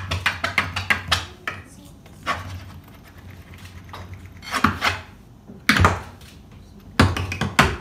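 Tap shoes striking a stage floor in an unaccompanied tap routine. A quick run of sharp taps comes first, then a few scattered taps, then denser flurries with heavier hits near the end.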